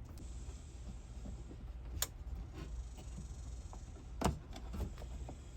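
A sharp click about two seconds in, then a louder knock a little after four seconds and a lighter one just after, over a low steady hum: handling and knocking sounds while wooden framing pieces are fitted.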